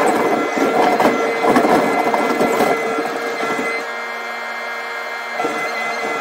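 Rail excavator's engine and hydraulics running, heard from inside the cab: a steady whine mixed with clatter, dropping to a lower, quieter hum about four seconds in and picking up again near the end.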